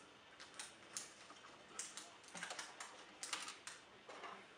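Faint, irregular light clicks and taps from hands working at the front end of a flight recorder's metal case, as it is being opened up.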